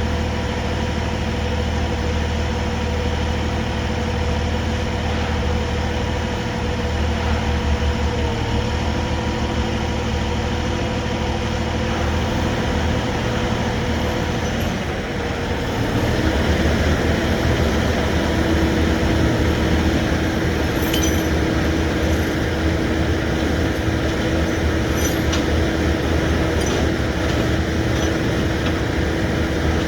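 Heavy rotator tow truck running at work, a steady engine sound with a held whine over it. About halfway through the sound dips briefly, then comes back a little louder with a lower-pitched steady whine, and a few faint metallic clinks follow.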